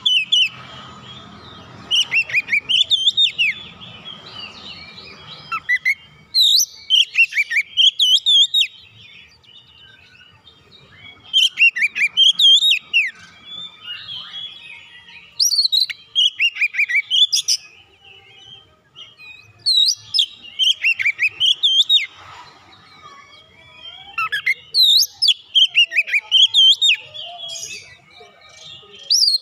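Oriental magpie-robin (kacer) singing: loud phrases of rapid, sweeping whistled notes, each about two seconds long, repeated every four to five seconds.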